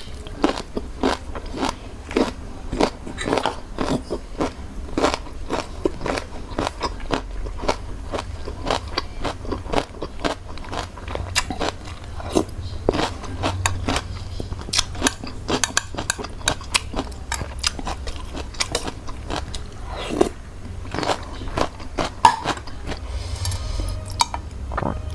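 Eating Thai cucumber salad with raw shrimp: a steady run of crisp crunches and chewing, several bites a second.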